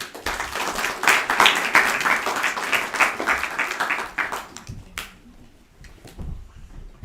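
Assembly audience of schoolchildren clapping, a dense round of applause that fades out after about four seconds.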